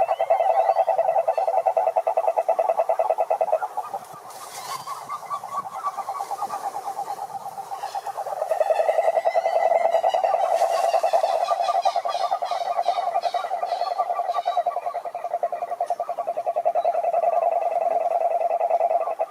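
A chorus of frogs calling: a loud, continuous fast pulsed trill that eases off for a few seconds about a fifth of the way in, then builds back. Shorter, higher-pitched pulsed calls from other frogs overlap it around the middle.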